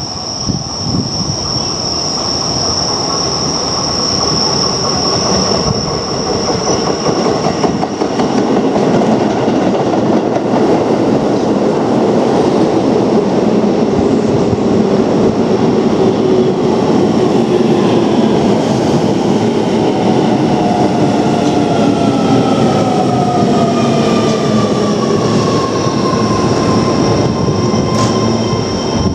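Keio Line electric train running, with the noise of the train and its wheels on the track throughout and a steady high-pitched tone for the first several seconds. In the last ten seconds or so the whine of its motors falls steadily in pitch as the train slows down.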